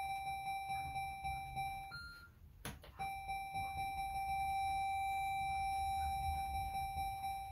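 Electronic fruit slot machine sounding a steady, high electronic tone. The tone breaks off about two seconds in around a single click, then resumes.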